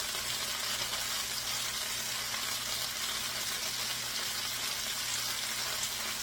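Bite-size chicken chunks frying in hot oil in a frying pan, a steady sizzle.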